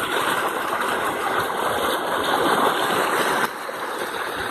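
Floodwater of a swollen creek rushing past in a steady roar of water noise, which drops suddenly in level about three and a half seconds in and carries on quieter.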